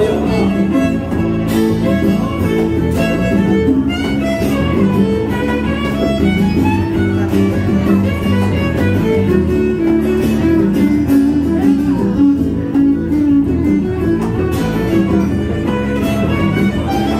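Live band playing an instrumental passage: bowed violin lead over guitar, electric bass and congas.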